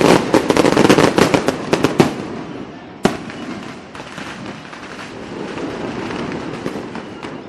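Fireworks going off: a dense volley of sharp cracks and pops in quick succession for the first two seconds, a single sharp bang about three seconds in, then steady crackling that slowly fades.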